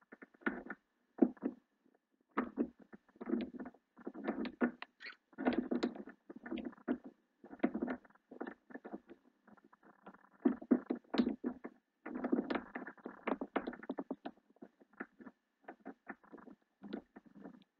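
Hook pick scraping and clicking on the standard pin tumblers inside a small Wolf Dog padlock's keyway as the pins are worked under tension. The sound is irregular runs of light metallic taps and short scrapes, some pauses between them.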